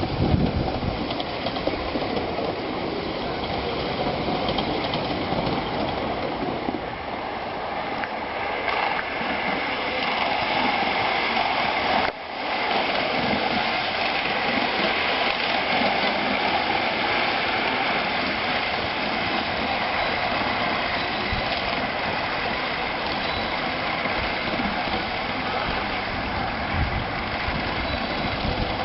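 Miniature steam railway train running on its track, a steady mixed rushing and rumbling noise of locomotive and carriages. It breaks off abruptly for a moment about twelve seconds in and then carries on.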